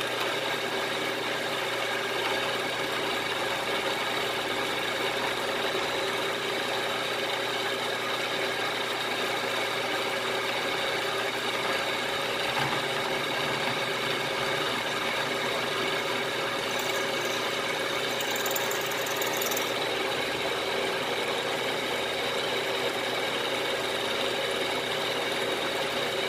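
Milling machine running steadily, its end mill cutting a 5/8 by 1/2 inch notch into the corner of a half-inch aluminium plate. A constant motor and spindle hum with several steady tones.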